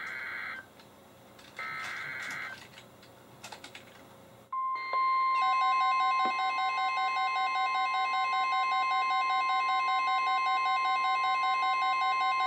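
The end of a NOAA Weather Radio SAME data header: two short screeching bursts of two-tone digital data in the first two and a half seconds. About four and a half seconds in, the steady 1050 Hz Warning Alarm Tone starts. A second later a weather radio receiver's own rapidly pulsing alert beeps join it. Together they mark the start of a new flash flood warning.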